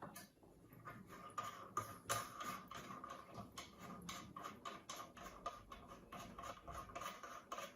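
Faint, irregular clicks and taps from a wrench or pliers working loose the nut of the flexible supply hose under a toilet cistern.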